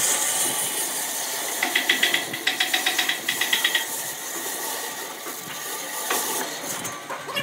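Bandsaw running with its blade cutting through a thick block of wood, a steady rushing noise. From about two seconds in until nearly four, a rapid chattering run of pulses, about six a second, sounds over it.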